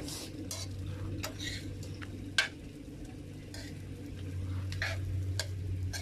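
Metal spoon stirring and turning fried rice in a metal pan over a wood fire, irregular scrapes and clinks about two a second, with the rice sizzling faintly underneath. One sharper clink about two and a half seconds in.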